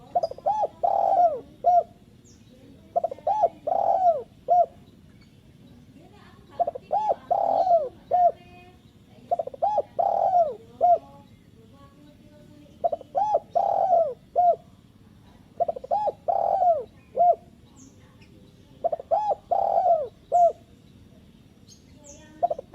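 Spotted dove cooing its territorial song, a decoy call meant to provoke wild doves: phrases of a few short coos and a longer swelling note, repeated about every three seconds. Faint high chirps from small birds are heard a few times.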